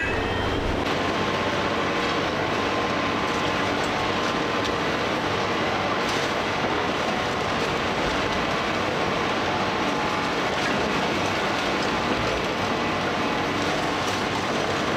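Komatsu PC490 heavy-duty excavator working demolition with an Indeco pulverizer: engine and hydraulics running under load amid a steady, dense din of grinding and rattling debris.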